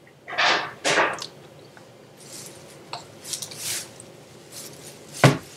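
A plate and cutlery being handled: two loud scrapes early on, softer scuffing, then one sharp clink about five seconds in.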